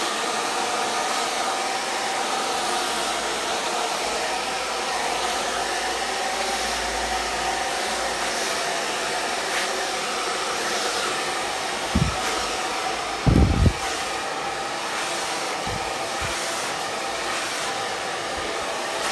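Handheld hair dryer blowing steadily, its motor giving a constant whine over the rush of air. A few low thumps come about two-thirds of the way through and are the loudest moments.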